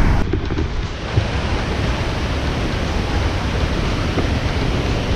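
Steady rushing roar of a large waterfall, with wind buffeting the microphone.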